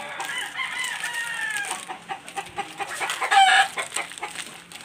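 A rooster crowing: one long call that slowly falls in pitch over the first two seconds, then a shorter, louder call about three and a half seconds in. Light clicking and rustling of plastic sachet packets being handled runs underneath.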